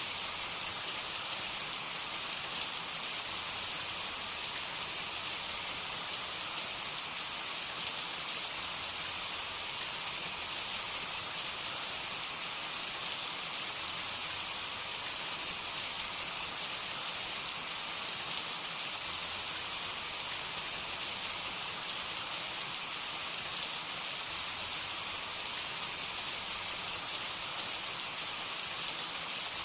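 Hot cooking oil sizzling steadily, with a scatter of small pops and crackles as food fries in it.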